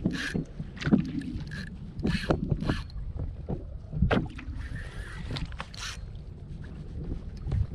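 Water slapping and splashing against a kayak hull in short, irregular hissing splashes, over a steady low rumble of wind on the microphone.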